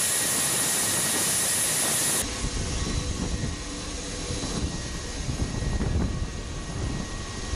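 Aircraft turbine engines running: a loud rushing hiss with a steady high whine, which cuts suddenly about two seconds in to a quieter, uneven low rumble that still carries a faint whine.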